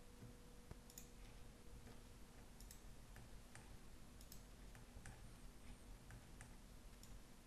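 Faint computer mouse clicks, about ten scattered irregularly, over a low steady hum.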